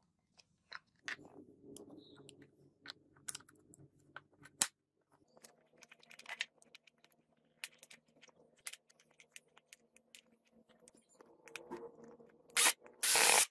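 Hands handling and fitting a power tool's plastic housing parts and wiring: scattered small clicks and rattles of plastic and metal terminals. Near the end comes a louder scraping burst as a screwdriver works a small screw into the housing.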